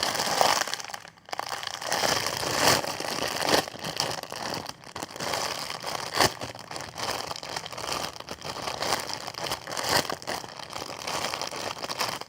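Crinkling and crackling of a squishy toy's plastic packaging as it is handled and squeezed, in irregular swells.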